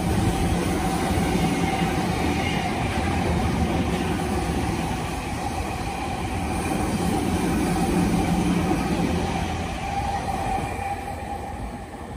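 Electric commuter trains passing each other, the near one running close by: a steady rumble of wheels on rail with a faint steady tone. It swells again about eight seconds in and falls off near the end.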